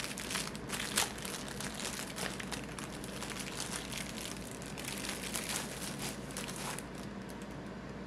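Brown paper wrapping crinkling and rustling as a large sub sandwich is unwrapped by hand, over the steady hum of an air fryer running.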